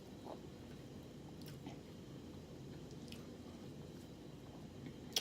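Close-miked chewing of rotisserie chicken, faint, with a few soft wet mouth clicks and a sharper click at the very end.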